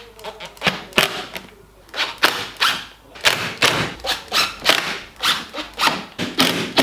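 Quick runs of short knocks and taps, about three or four a second, broken by brief pauses, as new screws are driven through the front splitter into the bumper.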